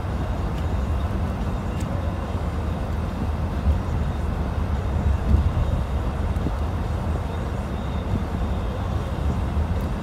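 A car driving on a snow-covered road, heard from inside the cabin: a steady low rumble of tyres and engine.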